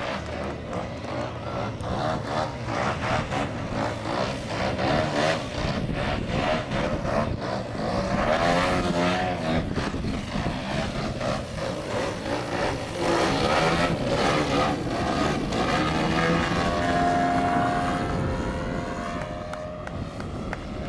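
Radio-controlled aerobatic model airplane's engine and propeller running overhead, the pitch rising and falling again and again as the plane throttles and swings through its manoeuvres.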